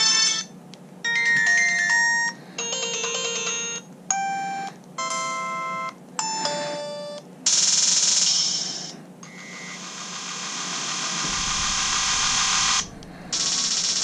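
LG VX6100 flip phone's built-in ringtones previewed one after another through its small speaker: about six short synthesized melodies, each cut off after a second or less as the list is scrolled. These are followed by two longer noise-like, percussive tones (the Drum and Claps tones), and near the end a new melody begins (the Fanfare tone).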